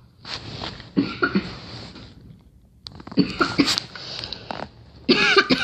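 A girl coughing in three bouts, each a run of rough coughs. The last bout starts about five seconds in and is the sharpest.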